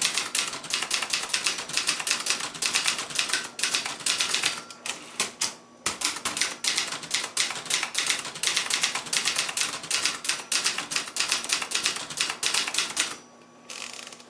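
1975 Brother Charger 11 manual portable typewriter being typed on quickly: a rapid, uneven stream of keystrokes with typebars clacking against the platen. There is a brief pause a little before the middle, and the typing stops about a second before the end.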